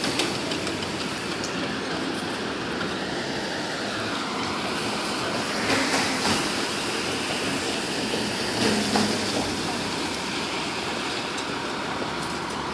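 Firehouse apparatus bay's overhead sectional door rising on its electric opener, running steadily.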